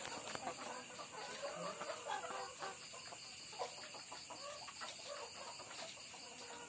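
Many caged laying hens clucking and calling in short, overlapping bursts, with a few scattered clicks, over a steady high-pitched hiss.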